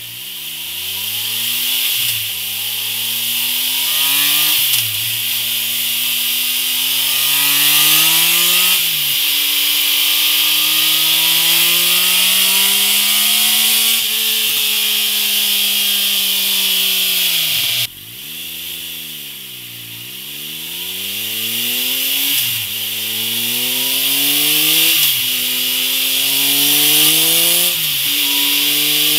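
Triumph Tiger Explorer 1200's three-cylinder engine accelerating through the gears under load on a dyno. Its pitch climbs in each gear and drops at each upshift, with one long pull that then falls away. First it runs through the stock silencer, then, after a cut about two-thirds of the way in, through a Mivv Oval Carbon Cap slip-on exhaust.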